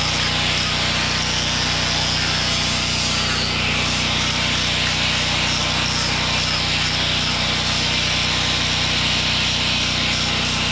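Corded angle grinder with a sanding disc running steadily against carved wood: a constant motor whine with the even hiss of the abrasive on the wood.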